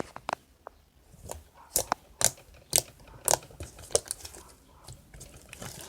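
Sticky slime that is not yet ready being squeezed and worked by hand, giving an irregular string of sharp, wet pops and clicks.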